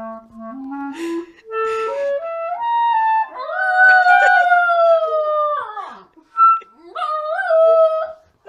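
A clarinet plays a rising run of short notes, step by step, then a cockapoo puppy howls along in long, wavering tones whose pitch slides down at the ends, twice, with a brief loud cry between the two howls.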